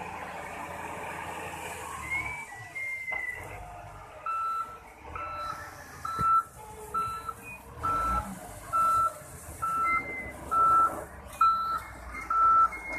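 SDLG wheel loader running, its diesel engine rumbling steadily; about four seconds in its reversing alarm starts beeping, a single high tone repeating about once a second as the loader backs up.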